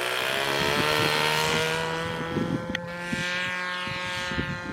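Radio-controlled aerobatic airplane's motor and propeller droning in flight, a single pitched note that rises slightly over the first couple of seconds and then holds steady.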